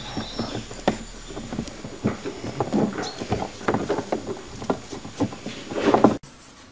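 English bulldog puppies squeaking and grunting as they tussle together. The sound is a quick, irregular run of short noises that gets loudest just before it cuts off about six seconds in.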